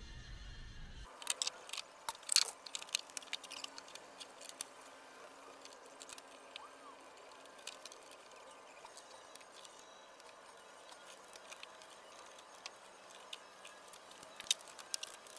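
Scattered light clicks and small taps, bunched about a second or two in and again near the end, with sparser ticks between.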